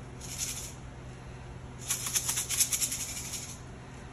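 A jar of dry seasoning mix (sesame seeds, onion flakes, black cumin seeds and salt) shaken by hand to blend it. The seeds rattle in two spells: a short one just after the start and a longer one about two seconds in.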